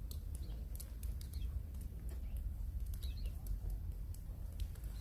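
Small birds giving a few short chirps over a steady low rumble, with scattered faint ticks.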